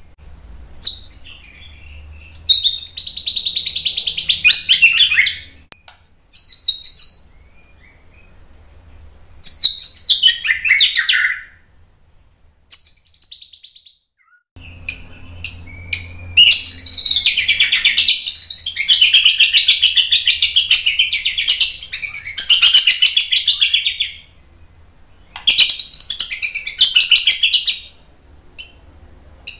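White-rumped shama singing in bursts of rapid, high-pitched trills and whistled phrases: the fast-fire "tembakan" song. Pauses of a second or two separate the bursts, and the longest run lasts nearly ten seconds in the second half.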